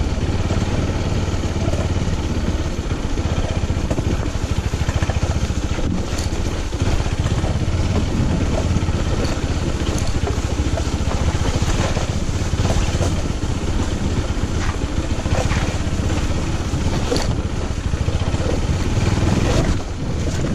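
Small motorcycle engine running steadily at low speed while riding a rough, muddy dirt track, with scattered knocks and rattles from bumps.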